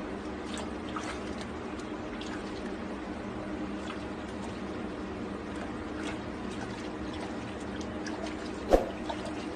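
Water running steadily into a bathtub, with a faint low hum beneath it. One short sharp knock near the end.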